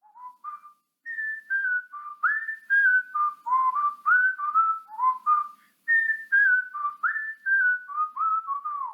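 A person whistling a tune: a run of short notes stepping up and down, some with a quick slide up into the note.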